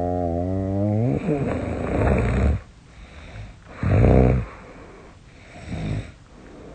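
A woman snoring loudly in her sleep, the kind of snoring she suspects is a sign of sleep apnea. A long pitched, buzzing snore rises and breaks off about a second in into a rough, noisy breath. A short loud snort follows about four seconds in, and a weaker one comes near the end.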